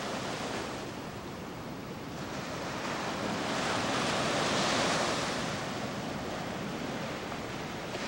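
Ocean surf washing onto a sandy beach. A steady rush of waves builds to a louder breaking wave about halfway through, then eases back.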